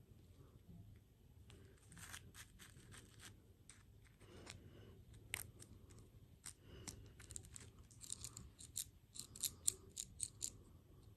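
Close-miked mukbang eating sounds: a run of small sharp crunches and crackles, clustered about two seconds in and coming thickest from about eight to ten and a half seconds in.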